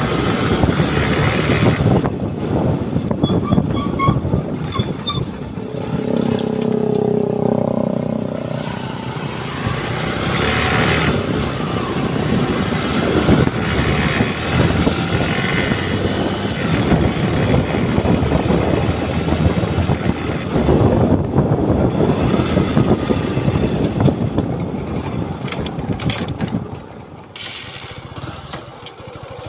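Wind buffeting a phone's microphone while riding in a moving vehicle, with engine and road noise underneath. The noise eases near the end.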